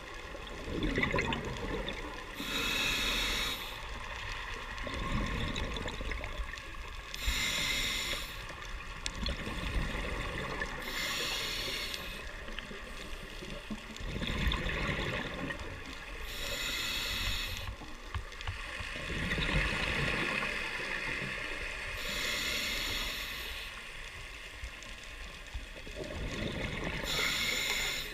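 Scuba diver breathing through a regulator underwater: a rush of exhaled bubbles about every four to five seconds, six times, with quieter breathing noise between.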